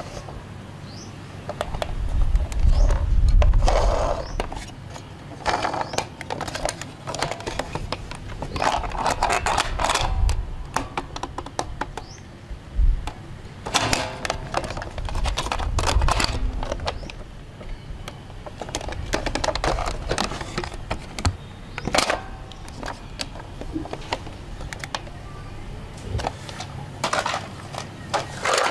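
Hard plastic toy police car being handled and its doors worked: a run of clicks and clacks, with dull thumps now and then.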